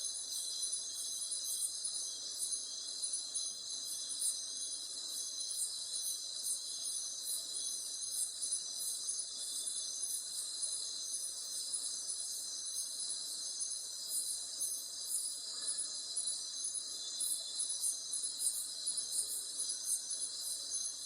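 Rainforest insect chorus: several steady, high-pitched trills layered together, with a rapid pulsing on the highest one.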